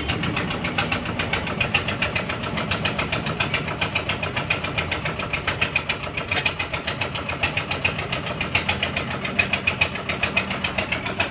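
An engine running steadily, with a fast, even rhythm.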